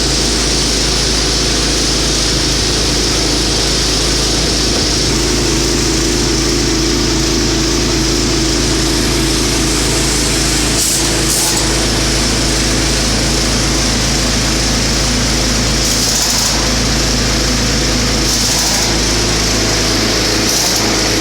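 Tractor engine running steadily and loudly after being cranked up, with a few short hissing bursts over it near the middle and toward the end.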